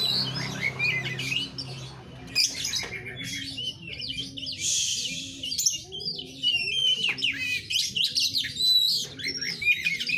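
Oriental magpie-robin (kacer) singing: a fast, varied run of chirps and whistled notes, with one harsh, raspy note about halfway through.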